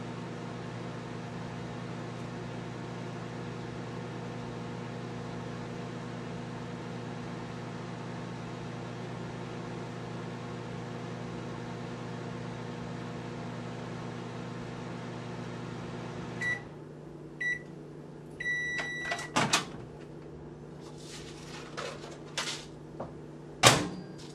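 Countertop microwave oven running with a steady hum that cuts off about two-thirds of the way through at the end of its cycle. Two short beeps and one longer beep follow. Then come the clicks of the door opening and a plate clattering onto the counter, the loudest knock near the end.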